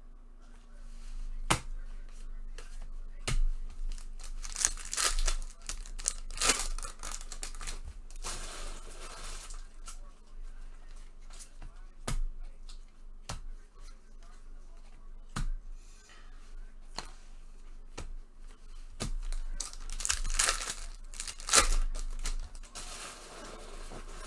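Bowman baseball card pack wrappers being torn open and crinkled, with several longer bursts of ripping and many sharp clicks and taps in between.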